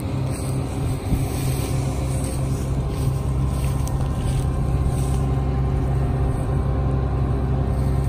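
John Deere T550 Hillmaster combine harvester's engine running steadily, a low, even drone with no change in speed.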